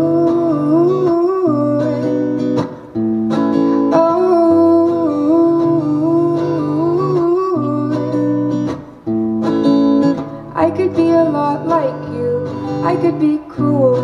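A woman singing a slow song while strumming an acoustic guitar, her voice held in long, gliding notes over sustained chords.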